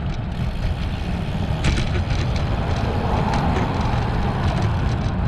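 Wind buffeting a chest-mounted camera's microphone on a moving road bike: a steady low rumble with a hiss of air and road noise above it, and a few faint clicks.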